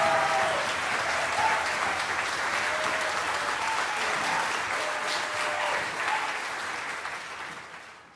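Live concert audience applauding, with scattered cheers rising above the clapping; the applause fades out near the end.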